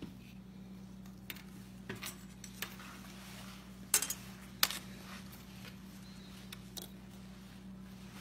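Scattered light clicks and knocks of tableware being handled on a wooden table, the loudest two about four and four and a half seconds in, over a steady low hum.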